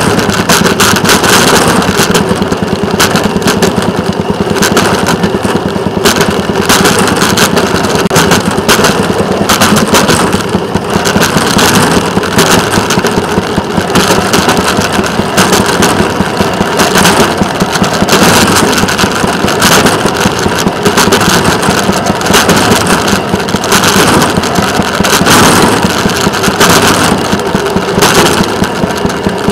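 Small engine of a rail motorcar running steadily as it travels along the track, with the wheels clattering on the rails throughout.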